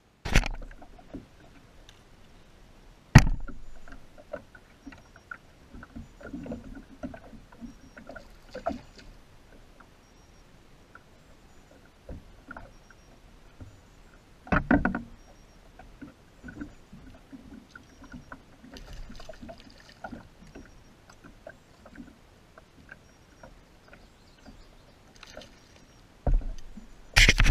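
Small waves lapping and slapping against a kayak's hull, with a few sharp knocks on the hull. Near the end comes a louder burst of splashing as a hooked fish is reeled up to the kayak.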